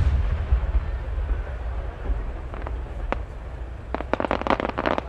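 Large ten-inch (No. 10) aerial firework shell: the low echo of its main burst dies away over the first two seconds. A few sharp pops follow near the three-second mark, then a quick string of many small pops from about four seconds in, the small secondary 'small flower' bursts breaking across the sky.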